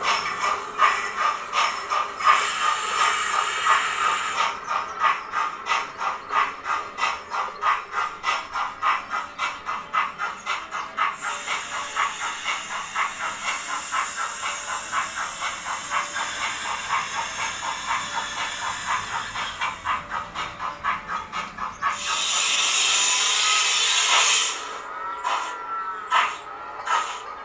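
Sound-fitted 00 gauge model of an S&DJR Johnson 1P steam locomotive playing its Youchoos sound file on a Zimo decoder: a regular steam-exhaust chuff, about four beats a second, with spells of steam hiss over it. The chuffs slow and stop about 22 seconds in, a loud hiss of released steam follows for about two seconds, and a few slow, spaced beats come near the end.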